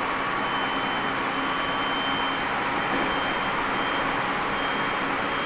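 Tobu 30000 series electric train heard from inside a motor car as it runs between stations: a steady rush of wheel and rail noise. A faint, high, steady whine comes in about half a second in and holds.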